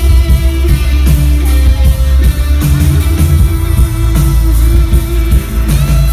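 Rock band playing live: electric guitar over heavy bass and a steady drum beat.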